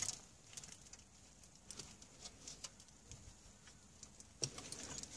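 Faint, scattered clicks and rustling of car-stereo wiring and plastic dash parts being handled and pushed into the dashboard cavity, getting busier near the end.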